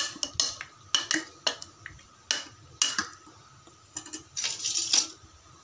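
Metal ladle stirring thick mutton gravy in an opened pressure cooker pot, clinking and scraping against the pot's side in irregular knocks.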